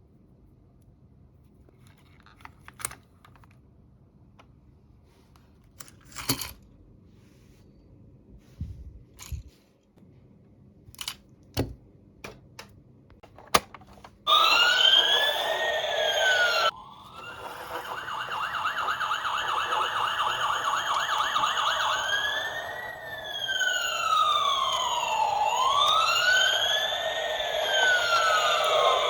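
Scattered small clicks and taps of plastic toy pieces being handled. About 14 seconds in, a toy's electronic siren starts suddenly and loudly with quick rising-and-falling whoops. It stops briefly, then comes back as a slower wail, rising and falling.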